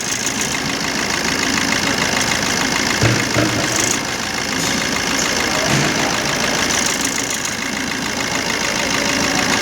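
Maruti Dzire's 1.3-litre four-cylinder diesel engine idling steadily. The engine has a misfire logged as fault code P0201, an open circuit to the number 1 injector.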